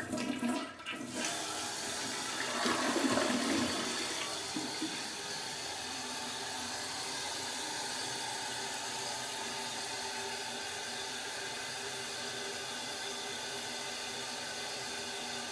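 Toilet flushing: a rush of water, loudest about two to four seconds in, settling into the steady hiss of the tank refilling through its fill valve. A normal, working flush and refill.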